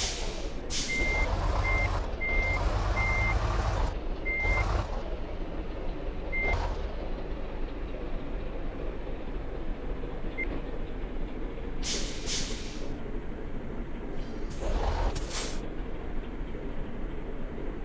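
A heavy vehicle's reversing beeper sounding short single-tone beeps for the first six seconds or so, then one stray beep, over a steady low engine rumble. Sharp hisses of released brake air come at the start and in pairs about 12 and 15 seconds in.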